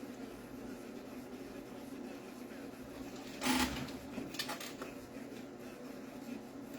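Quiet room tone with a steady low hum. About three and a half seconds in there is a brief rush of noise, then a few faint clicks.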